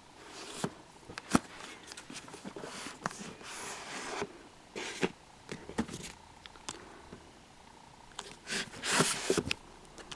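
Handling noise from a handheld camera: irregular soft clicks and rustling, with several short hissy bursts, the loudest about nine seconds in.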